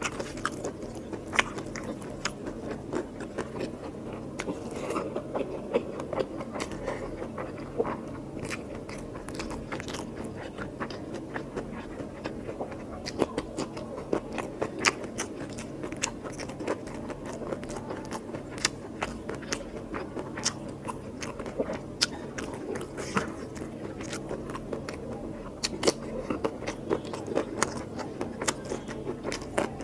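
Close-miked eating: wet chewing and smacking of curry with rice and mutton, with frequent sharp clicks and crunches from bites.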